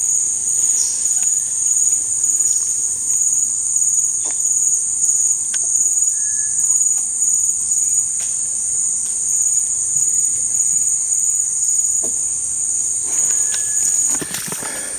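Insects buzzing in a steady, high-pitched drone that cuts off suddenly near the end, with a few faint clicks scattered through it.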